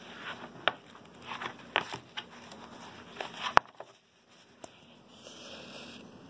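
Pages of a paperback book being flipped by hand: quick paper flicks and rustles for about three and a half seconds, ending in one sharp snap, then a soft brushing rustle of paper near the end.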